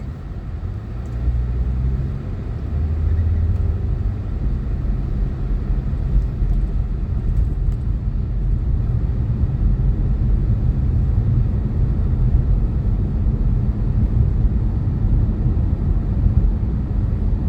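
Interior road and engine noise of a Toyota car being driven: a steady low rumble that picks up slightly about two seconds in.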